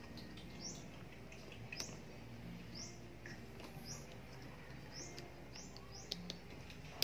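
A small bird chirping repeatedly, short high rising chirps about once a second, with a few faint clicks as plastic wiring connectors are handled.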